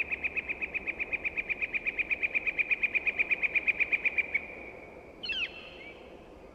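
Bird calling outdoors: a rapid, even train of identical high notes, about ten a second, that stops about four and a half seconds in, followed by two short chirping calls that sweep down in pitch.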